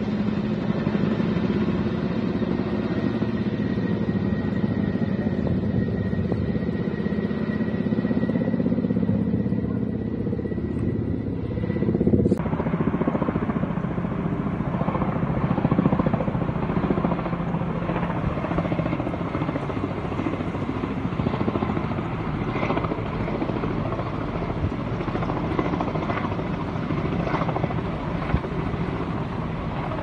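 Firefighting helicopter flying, its rotor and engine running steadily. About twelve seconds in the sound cuts abruptly to a second, noisier recording of the helicopter.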